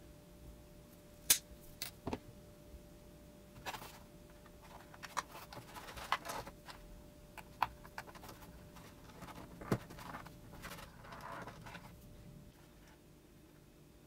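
Diagonal cutters snip a pushrod wire with one sharp click about a second in, followed by scattered small clicks and light rustling as small plastic parts are fitted onto a servo by hand.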